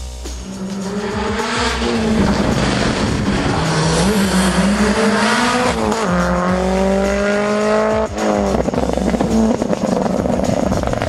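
Rally car engine accelerating hard, its revs climbing and dropping sharply at gear changes about six and eight seconds in.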